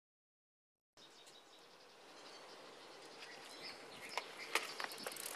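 Total silence for about a second, then an outdoor ambience fades in: a steady faint hiss with short bird chirps that come more often near the end.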